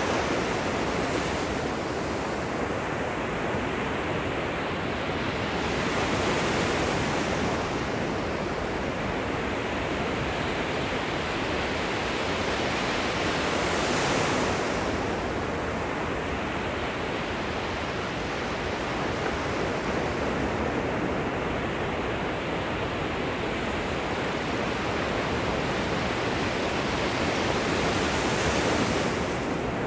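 Gentle ocean surf at the shoreline: a steady wash of small waves, with a brighter hiss as a wave breaks and runs up the beach about a second in, around six and fourteen seconds, and again near the end.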